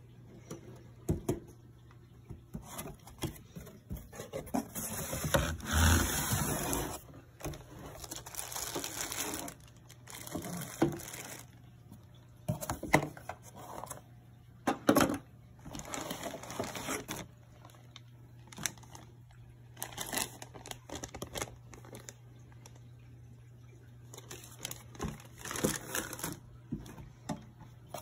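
Cardboard box and clear plastic packaging being handled and rustled: irregular crinkling and scraping with an occasional sharp knock, over a steady low hum.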